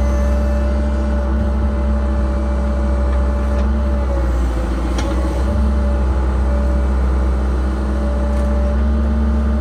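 Cat 306 mini excavator's diesel engine running steadily under load with a constant whine, heard from inside the cab while the boom is worked. The whine dips briefly about halfway through.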